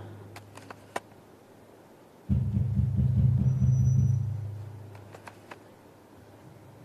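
A deep, drum-like bass throb with rapid pulses that starts suddenly about two seconds in and fades out over the next few seconds, with a few faint clicks around it.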